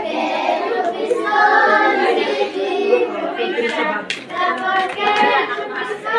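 A group of young children singing together, with scattered hand claps.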